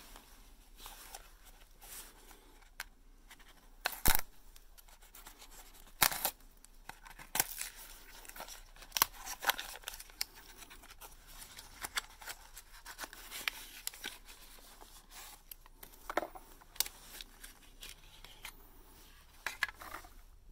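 A small cardboard flashlight box being opened and its paper packaging torn and handled: irregular scratching, rustling and tearing, broken by sharp clicks, the loudest about four, six and nine seconds in.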